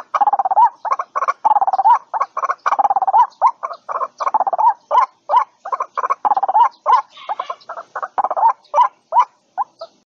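White-breasted waterhen calling: a long run of short repeated call notes, about three to four a second, that grows sparser and stops near the end.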